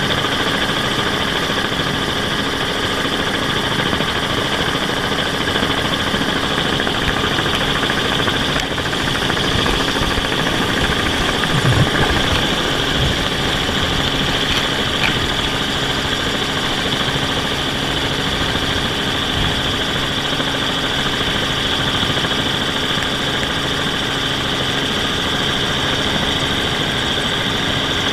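Steady whine and hum of a camera drone's motors and propellers in hovering flight, the pitch holding level throughout, with one brief low thump near the middle.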